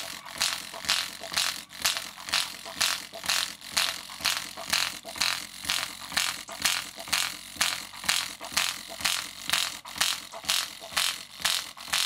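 Small fire-alarm system speaker with a rotted foam surround, run without its 70-volt transformer, driven hard with bass. It pulses in a steady rhythm, about two and a half pulses a second.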